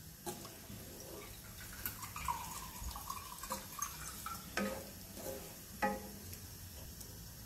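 Spatula stirring watery masala gravy in a nonstick pan: quiet sloshing of liquid with a few light knocks and scrapes of the spatula against the pan.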